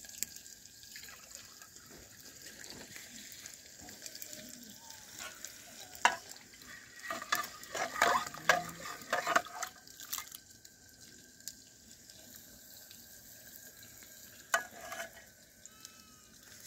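Food cooking in a metal pot over a wood fire: a faint steady hiss, with a run of metal clinks and knocks from about six to ten seconds in as a ladle stirs against the pot, and one more click near the end.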